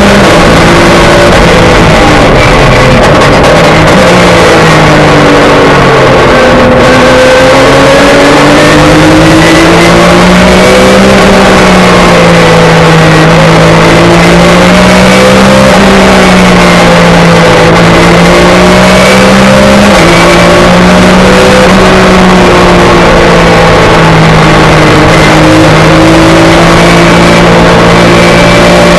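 Onboard sound of a Porsche 911 GT3 Cup race car's flat-six engine under racing load, loud throughout. Its pitch falls about four to six seconds in as the car slows for a corner, then climbs again and keeps rising and falling as the driver brakes, shifts and accelerates through the corners.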